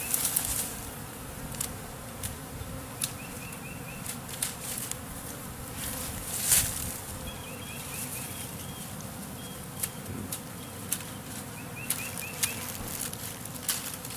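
A honeybee swarm humming steadily while clustered on a shrub. Sharp clicks and snaps come at irregular moments, with a louder rustle near the start and another about six and a half seconds in, and runs of short high chirps now and then.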